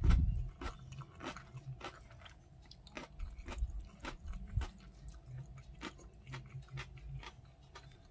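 Close-up crunching and chewing of crisp cubed radish kimchi (kkakdugi): irregular sharp crunches with dull chewing thuds beneath, loudest about the start, then sparser bites.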